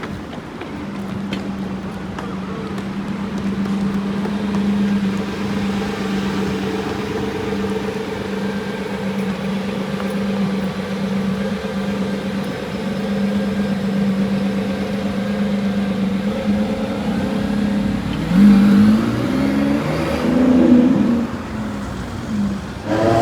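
Lamborghini Revuelto's naturally aspirated V12 idling steadily, then revved twice near the end, each rev rising and falling in pitch.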